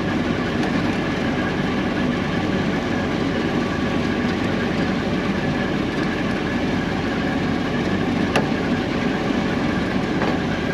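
John Deere combine harvester's diesel engine running steadily, with a single sharp click about eight seconds in.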